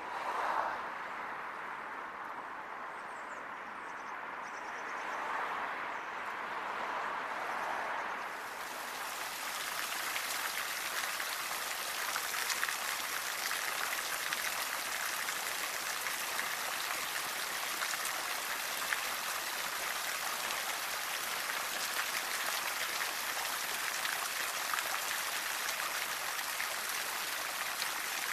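Water from a restored Victorian fountain, cast by the Sun Foundry in 1868, splashing into its stone-rimmed basin: a steady rushing, hissing spatter that comes in suddenly about eight seconds in. Before that there is only quieter, varying open-air background.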